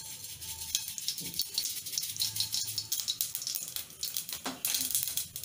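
Mustard seeds sizzling and crackling in hot oil in a kadai as they are tempered, a dense run of small pops that thickens near the end.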